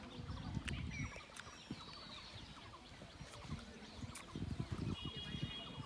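Faint open-air ambience: a low, uneven rumble with scattered faint bird chirps, and a short bird call near the end.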